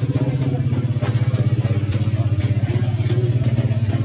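An engine idling steadily with a fast, even throb, loud and close. Three brief high chirps come about two to three seconds in.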